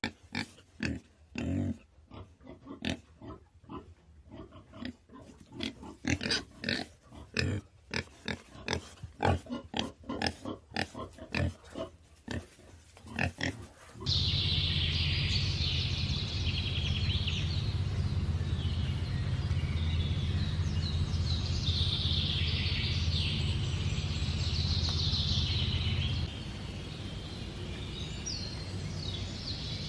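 Wild boars grunting and snuffling in quick, irregular bursts as they root through dry leaves. About halfway through, the sound cuts to birds chirping over a steady low hum, and the hum drops away near the end.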